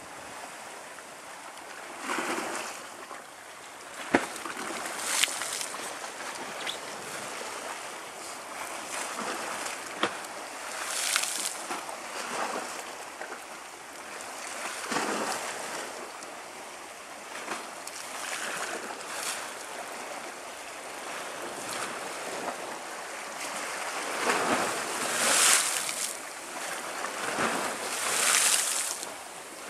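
Sea waves washing against the shore, swelling and easing every few seconds, louder near the end, with wind on the microphone. There are a couple of sharp clicks early on.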